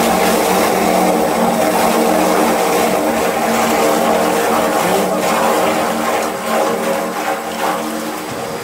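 Toothpaste mixing machine running: a steady motor hum with several held tones over the churning and splashing of liquid as its scraper-blade agitator turns in the tank. It gets a little quieter after about six seconds.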